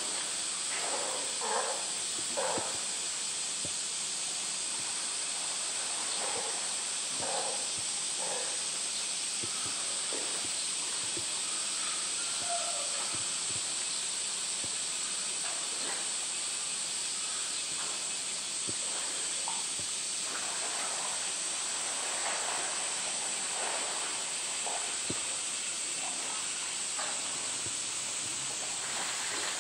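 A steady high-pitched hiss of outdoor ambience, with faint, scattered water splashes from a polar bear swimming and playing with floating toys in its pool.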